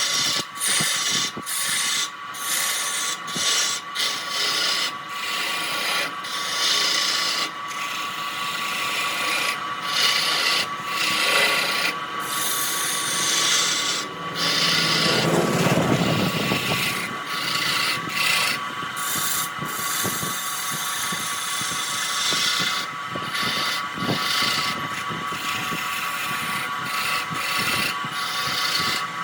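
Wood lathe running with a steady whine while a turning tool cuts the spinning wood, a scraping hiss that stops briefly every second or so as the tool lifts off, with a louder, deeper cut about halfway through.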